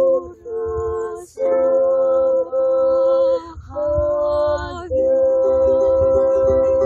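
Women singing a slow song in long, held notes, with ukulele accompaniment. Wind rumbles on the microphone underneath.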